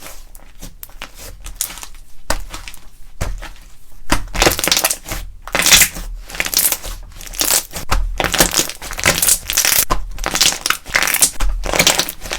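Slime with candy mixed into it being worked by hand, crunching and crackling in repeated strokes. Quieter for the first few seconds, then louder at about two strokes a second.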